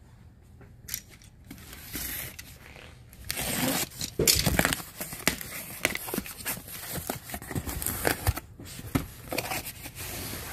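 Packaging being torn open and crinkled by hand: a few scattered rustles, then from about three seconds in a long stretch of irregular tearing and crackling.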